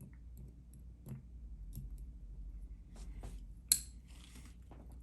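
Small clicks and taps of tiny metal lock parts (pin tumblers and springs) being handled while the lock's core is gutted. One sharper metallic click comes near the end, followed by a brief rattle.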